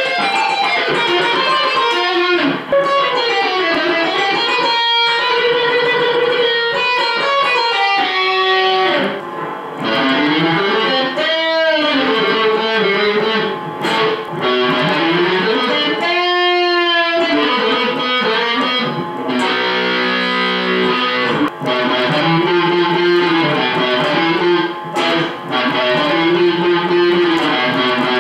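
Electric guitar played solo: fast lead lines with two-handed tapping on the fretboard, and several smooth pitch swoops around the middle.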